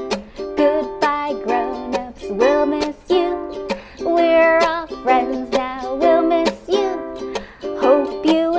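A Mitchell ukulele strummed in a steady rhythm, accompanying a woman singing a simple children's goodbye song.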